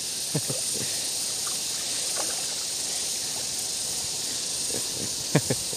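Steady high-pitched drone of insects, with a few brief faint sounds about half a second in and again near the end.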